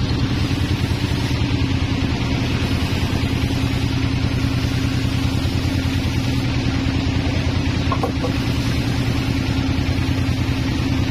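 Sawmill machinery running steadily with an even low throb, the engine and band saw turning over without cutting, while the log is still being moved into place.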